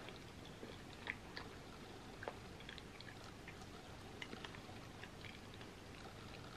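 Faint chewing of soft macaroni and cheese, with scattered small, wet mouth clicks.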